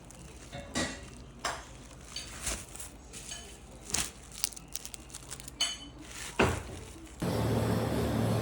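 Scattered light clinks and knocks of dishes and cutlery. About seven seconds in, they cut off abruptly and a steady low rumble with a hum takes over.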